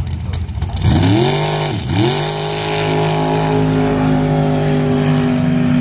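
A sand drag rail dragster's engine launching: it rumbles at the line for about a second, then revs climb steeply. About two seconds in the pitch dips sharply, then rises again and holds high and steady at full throttle.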